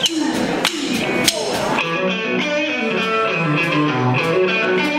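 Live rock band starting a song: a few evenly spaced sharp clicks, then electric guitars and drums come in together about two seconds in and play on steadily.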